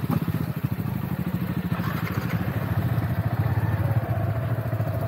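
Motorcycle engine running steadily, a dense even train of firing pulses with a low, deep note.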